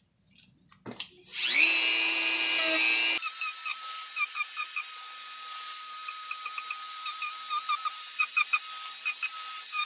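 A Dremel rotary tool is clicked on about a second in and spins up in pitch to a steady whine. About three seconds in, the sound changes abruptly as its rough-grit sanding head grinds down the glued seams of EVA foam: a high steady whine with rapid squeaky chatter.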